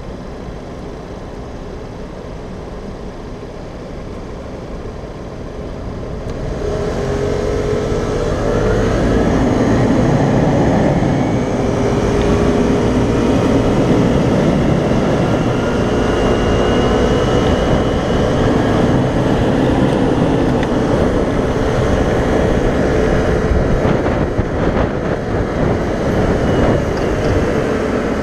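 Vespa scooter engine, quiet at first amid traffic. About six seconds in it pulls away, the engine note rising as it speeds up. It then runs on steadily at speed with a rush of wind noise.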